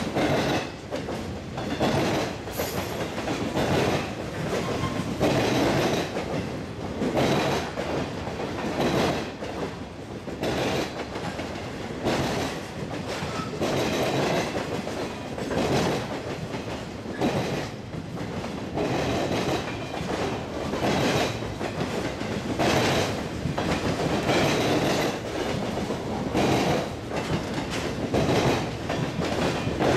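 Freight cars of a manifest train rolling past close by, boxcars and covered hoppers: a steady rumble with a clickety-clack of wheels that comes in bunches every one to two seconds as each car's trucks go by.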